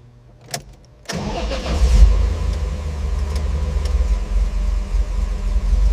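A restored classic Chevrolet's engine starting: a click, then the engine catches about a second in, runs briefly louder, and settles into a steady idle.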